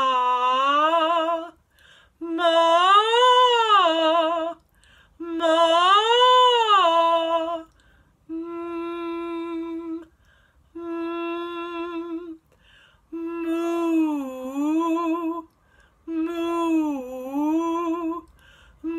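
A woman's voice doing wordless vocal warm-up phrases, each about two seconds long with brief pauses between them. Some are held on one note with vibrato, some slide up and back down in an arch, and others dip down and return.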